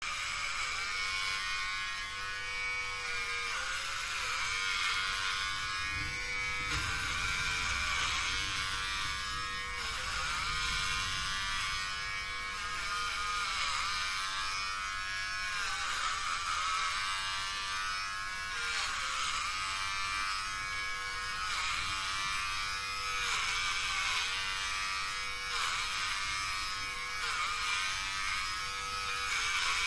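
Electric hair clippers running with a steady buzz, the pitch dipping briefly every second or two as the blades bite through hair.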